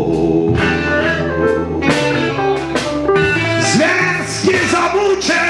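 Live band music in a reggae jam, with electric guitar prominent between sung lines; a male voice comes back in with the next line near the end.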